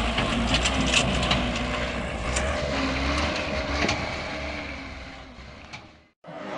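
Dump truck's diesel engine running as it strains to pull out of a rut, with stones and gravel crunching under the tyres, fading out near the end.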